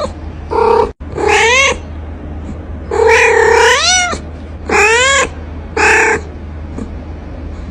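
A cat meowing five times in a row, loud drawn-out meows that rise and then fall in pitch; the third is the longest, about a second.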